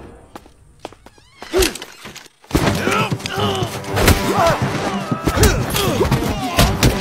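Staged fight sound effects: a single heavy thump about a second and a half in, then from about two and a half seconds in a dense run of blows and thuds with grunts and shouts of men struggling.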